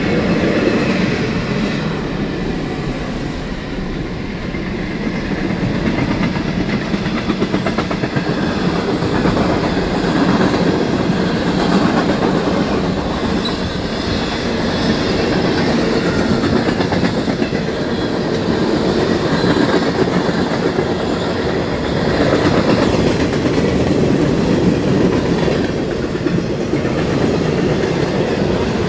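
Freight train of tank cars, boxcars and covered hoppers rolling past close by: a steady rumble with the wheels clacking over the rail joints.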